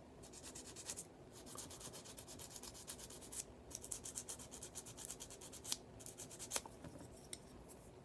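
A flexible sanding stick rubbing on a plastic model engine part in quick, even back-and-forth strokes, smoothing down a mould seam. The strokes are faint and pause briefly about halfway through, and there are a couple of light clicks near the end.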